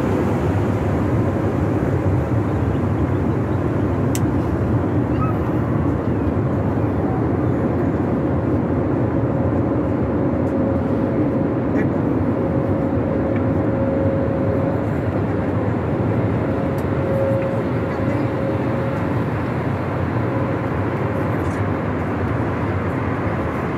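Steady cabin noise inside an Airbus A320-family airliner in flight: engine and airflow noise at an even level. A faint steady hum comes and goes about halfway through.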